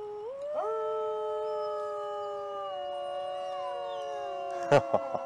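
People howling in imitation of wolves, hands cupped to their mouths, to start a howling exchange with a wolf pack. Several long, steady howls overlap, entering one after another and sliding down in pitch near the end, with a couple of sharp knocks shortly before the end.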